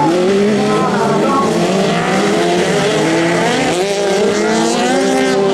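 Several autocross racing engines running hard at once, their pitch rising and falling as the drivers rev and shift through the corners of a dirt track.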